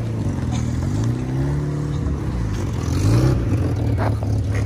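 A motor vehicle's engine running close by, its pitch rising and falling a couple of times as it revs. A few short clicks near the end.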